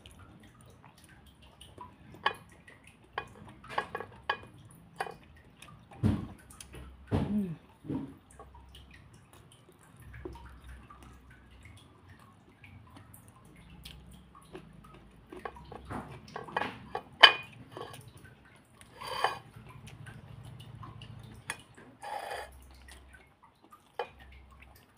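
Close-up eating sounds: irregular wet smacking and chewing clicks as rice, tofu and raw petai beans dipped in sambal are eaten by hand, with a few louder clicks spread through.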